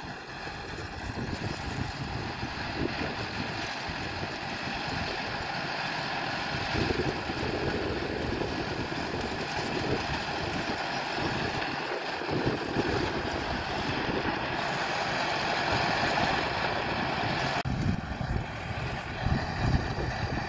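Farm tractor engine running steadily under load as it pulls a seven-row sugar beet hoe through the crop rows, with wind buffeting the microphone. The sound changes abruptly a few seconds before the end.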